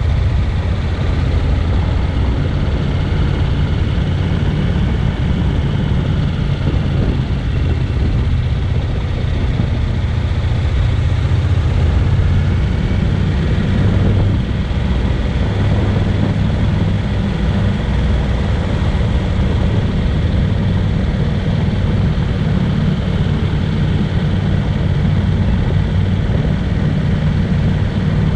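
Honda NC750X motorcycle's parallel-twin engine running steadily, a dense low rumble with a constant hiss above it.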